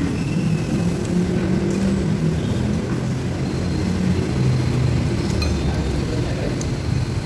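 Steady low rumble of dining-room background noise, with a few light clinks of spoon and fork against a bowl about five seconds in.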